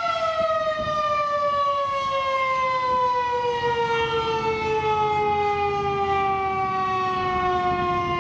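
Federal Signal 2001-130 rotating electromechanical warning siren winding down: its tone slides slowly and steadily lower in pitch as the rotor coasts down. A low rumble joins beneath it from about halfway through.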